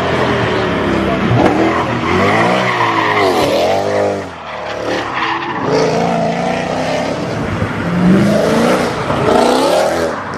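Lamborghini sports-car engine revving up and down in repeated sweeps, with tyres skidding.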